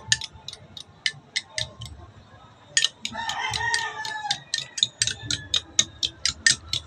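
Metal spoon beating eggs in a ceramic cup, clicking against the side about four to five times a second, with a short pause. A rooster crows once about three seconds in.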